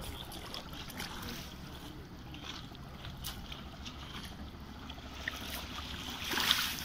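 Wind on the microphone over the steady wash of small sea waves, with a louder rush of noise about six seconds in.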